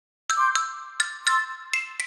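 Short outro jingle played on a bell-like mallet instrument: a quick run of struck notes, each ringing out briefly, starting about a quarter second in.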